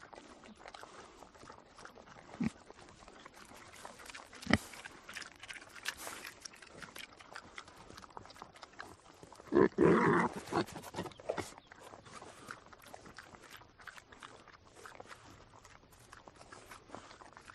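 An animal call, once, about ten seconds in and lasting about a second, over a low background with a few short knocks.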